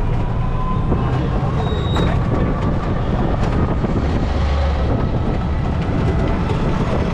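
Steady engine and road rumble of a moving hired vehicle, heard from on board in city traffic.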